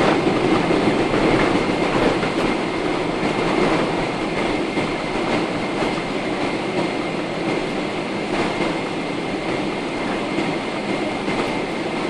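Cabin noise of a Boeing 777-300ER rolling along the runway after landing: a steady rumble with rattling, easing off slightly over the first few seconds as the aircraft slows.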